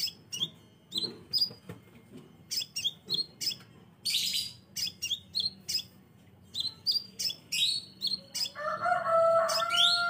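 Crimson sunbird calling: a string of short, sharp, high-pitched chirps, a few a second, with a harsh rasping burst about four seconds in. Near the end a lower, drawn-out call from another bird rises over them.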